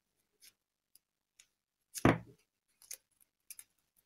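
Light clicks and rustles of beaded wire leaves being handled as green floral tape is wound around their stem, with one louder thump about two seconds in.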